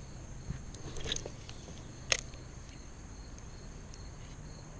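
Crickets chirping faintly in a steady, even rhythm. Over them come a few light clicks in the first second or so and one sharp click about two seconds in, from fishing rod and reel handling.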